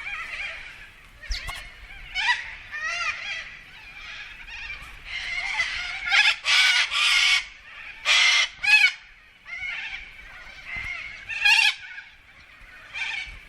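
A flock of birds calling over one another in a noisy, overlapping racket of harsh, honking calls. The calls come in quick runs and clusters, loudest about halfway through.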